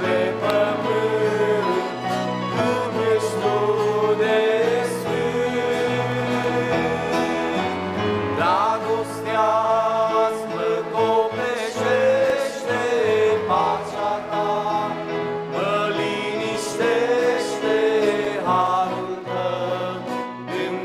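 A male vocal quartet sings a hymn in harmony, accompanied by accordion and acoustic guitar.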